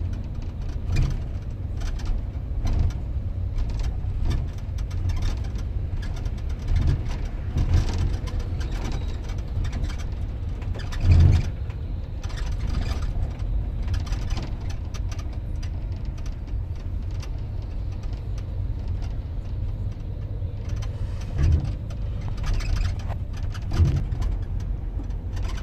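Low, steady rumble of a bus's engine and road noise from inside the upper deck of a moving double-decker bus. Occasional knocks and bumps come through the body, the loudest about eleven seconds in.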